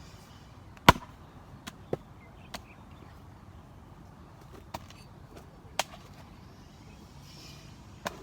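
A 4.5 lb Marathon axe striking wet acacia wood: about six sharp chops at uneven intervals, the loudest about a second in.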